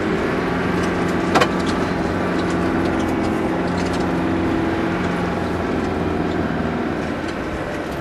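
Land Rover Discovery engine running steadily under load, heard inside the cab as it drives over a dirt track, with small rattles and one sharp knock about a second and a half in.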